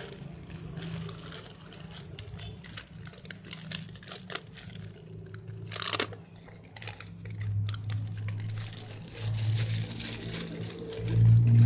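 Packaging crinkling and rustling as it is handled and opened, a dense run of irregular crackles with a longer rasp about halfway through. A low hum runs underneath and grows louder in the second half.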